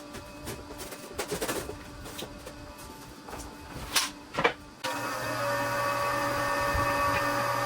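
Scattered knocks and clicks of hands-on work, then from about five seconds in a steady motor hum with a held whine: a Milwaukee battery-powered transfer pump running as it drains the water heater tank.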